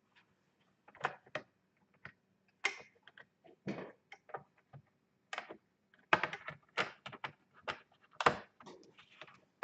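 Irregular small plastic clicks and taps of laptop internals being handled while a connector is worked into its socket, busier in the second half.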